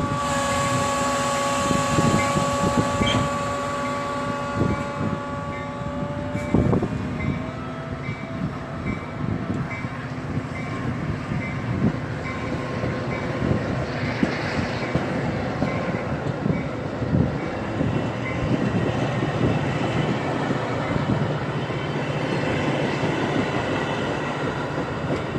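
Metra locomotive 137's horn sounding a steady three-note chord for about six and a half seconds, then cutting off with a short dip in pitch. The train then keeps rolling in, with wheels rumbling and clacking over the rail joints and a brief hiss about halfway through.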